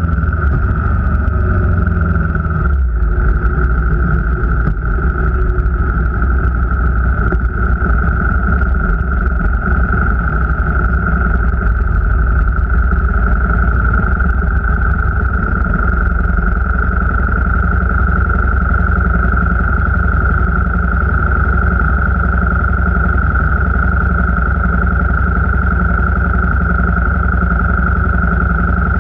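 Vehicle under way: a low engine and road rumble, with a steady high-pitched whine over it.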